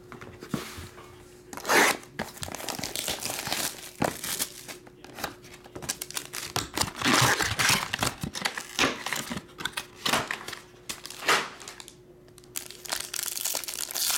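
Foil trading-card pack wrapper crinkling and tearing as it is handled and opened by hand, in irregular rustles and crackles that come and go.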